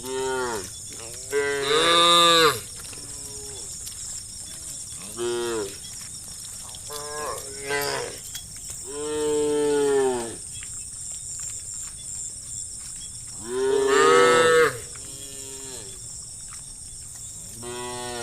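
Several cows mooing in turn, a call every few seconds, some short and some drawn out. The loudest moos come about two seconds in and near fourteen seconds, with a long one around nine to ten seconds.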